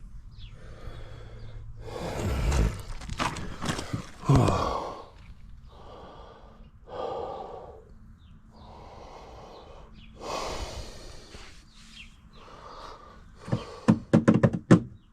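A man breathing hard and grunting with effort, a breath every second or two. Near the end comes a quick run of sharp metallic knocks and clicks.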